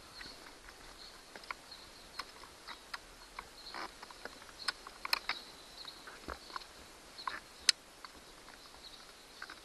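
Scattered light clicks and taps from hands working the wiring and terminals of an opened outboard remote-control box, the loudest about five seconds in and near eight seconds in, over a faint steady high buzz of insects; no starter cranking or engine running.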